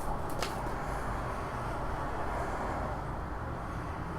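Steady background noise, with a couple of soft clicks in the first half second.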